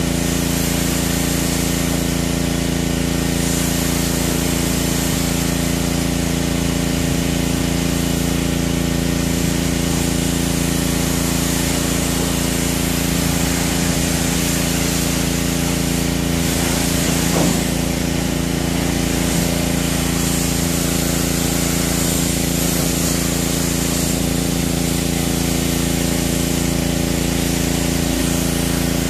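Pressure washer running steadily with a constant motor hum, its wand spraying a hissing jet of water onto a car.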